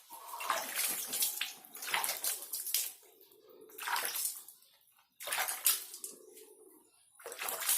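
Water splashing in several short bursts as a rooster's head is wetted again while being washed.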